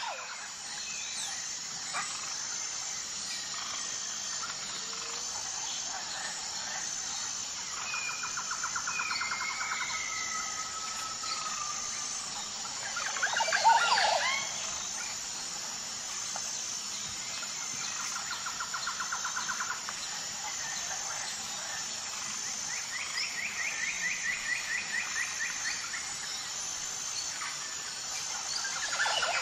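Birds singing over a steady, high-pitched pulsing drone: several trilled songs and whistled glides, with the loudest, sweeping call about fourteen seconds in.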